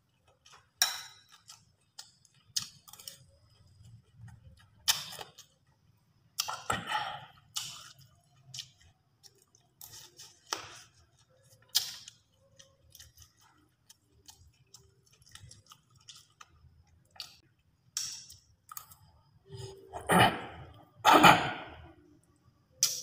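Close-miked chewing and mouth sounds of a man eating rice and grilled fish, with sharp clicks of a metal spoon against the dishes. About 20 seconds in come the loudest sounds, two longer crackling rips as the charred grilled fish is torn apart by hand.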